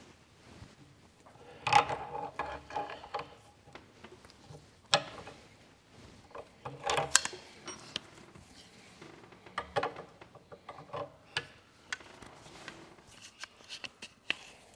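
Metal clicks, clinks and knocks of hand tools and steel parts as the piston is worked loose from the rod of a Massey Ferguson 20 power steering cylinder, which is held in a vise. The clatter is louder about two seconds in and again around seven seconds.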